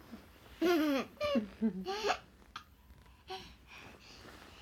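A toddler babbling and laughing in a few short bursts in the first half, with high, sliding pitch.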